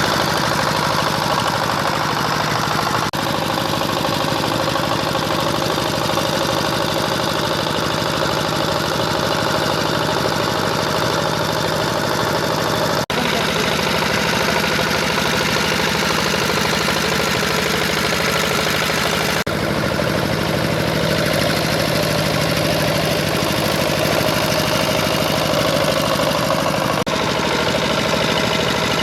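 Power tiller's single-cylinder diesel engine running steadily under load while ploughing with a rotavator in wet paddy mud. The sound shifts abruptly in tone a few times.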